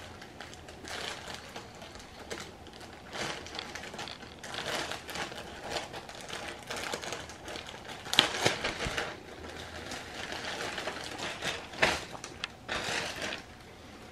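Thin clear plastic polybag crinkling and rustling in irregular bursts as hands open it and slide a t-shirt out, with sharp crackles about eight and twelve seconds in.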